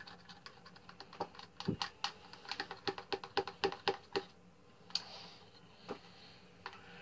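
Spoon clicking and scraping against a small plastic cup while stirring a conditioner-and-marker-ink mix: quick, irregular clicks, thicker in the first few seconds and thinning out after about four seconds.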